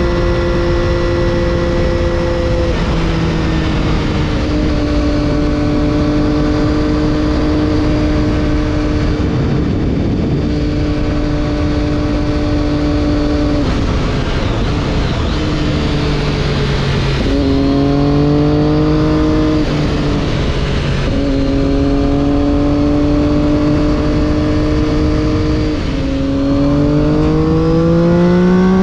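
Triumph Daytona 675's inline three-cylinder engine through an Arrow exhaust, heard onboard at fairly steady revs with a few small drops and jumps in pitch, then rising as it accelerates near the end. Wind rush runs underneath.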